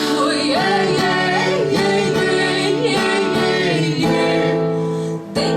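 Singing with strummed acoustic guitar: a long wordless sung line that wavers up and down in pitch over the guitar chords.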